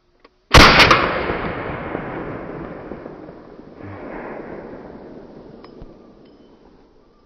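A single gunshot fired close by, a sharp crack about half a second in followed by a long rolling echo that dies away over about six seconds.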